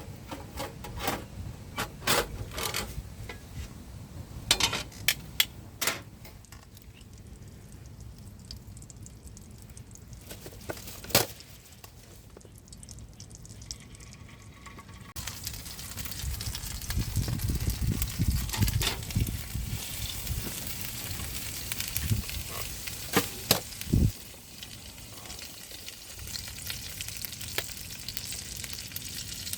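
Clicks and knocks of cooking utensils against a pan, then food sizzling in a hot pan, the sizzle starting suddenly about halfway through and going on steadily, with a few more knocks.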